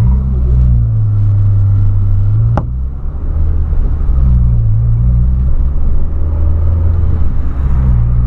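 Volkswagen Polo's engine running under acceleration, heard inside the cabin as a low, steady drone. About two and a half seconds in there is a sharp click, and the level dips briefly.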